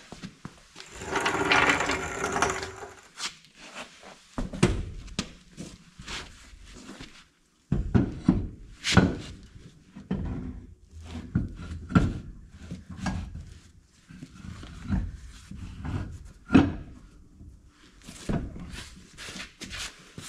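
A car wheel and tyre being handled and fitted onto a rear axle hub. A rough scraping rustle comes about a second in, then a long string of irregular knocks and clunks as the wheel is worked onto the hub.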